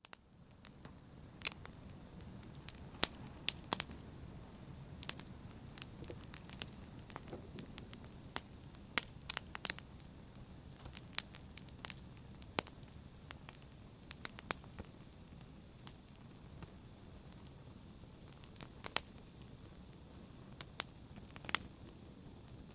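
Wood fire burning in a fireplace: irregular sharp pops and snaps of crackling logs over a low steady rush of the flames.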